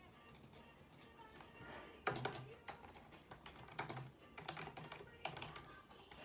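Typing on a computer keyboard in four short bursts of keystrokes, starting about two seconds in.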